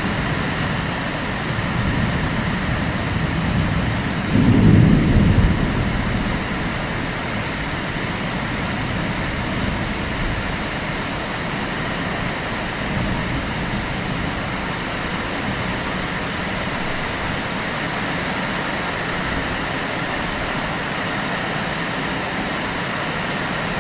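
Heavy rain falling steadily, with one low rumble of thunder about four to six seconds in, the loudest moment.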